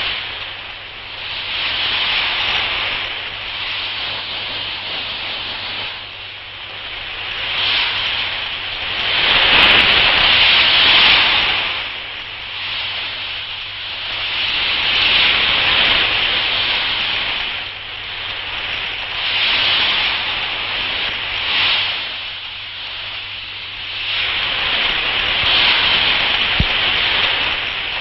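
Sea surf breaking and washing against rocks: a rushing noise that swells and falls back every four to six seconds, loudest about ten seconds in.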